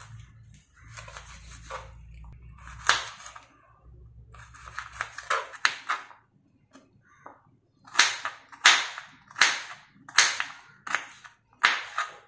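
Kitchen knife chopping beetroot into cubes on a wooden chopping board, the blade knocking sharply on the wood. The chops are uneven at first, then turn into a steady run of about seven firm chops in the second half.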